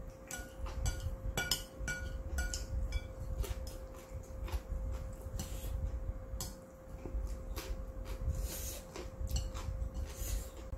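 Chopsticks clinking against a ceramic bowl as noodles are stirred and picked up. A quick run of ringing clinks comes in the first three seconds, then scattered clicks, along with chewing.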